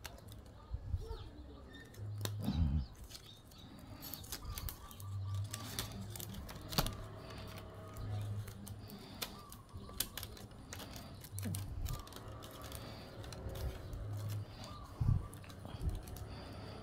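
Thin bamboo strips clicking and rattling as they are twisted and worked into the rim of a woven bamboo basket, with scattered dull bumps from handling.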